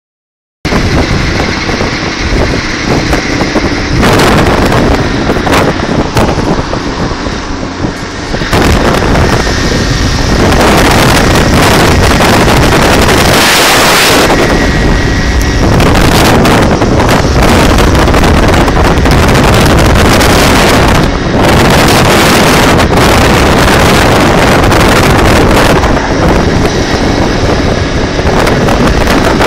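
Heavy wind rush over a phone microphone carried on a moving vehicle, with road and traffic noise underneath. It is uneven at first, then grows louder and steady about eight seconds in.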